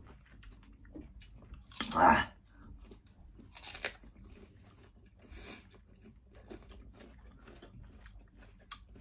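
Crisp apple being bitten and chewed close to the microphone: a loud crunch about two seconds in and another about a second and a half later, with smaller chewing clicks between.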